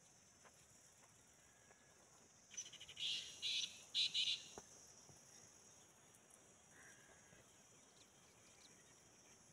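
Black francolin calling once: a harsh, rhythmic phrase of several grating notes that starts about two and a half seconds in and lasts about two seconds. A steady high insect hiss runs underneath.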